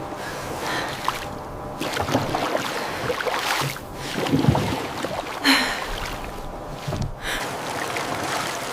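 Steady rushing noise of water and wind, with a few sudden louder splashes or knocks in the middle.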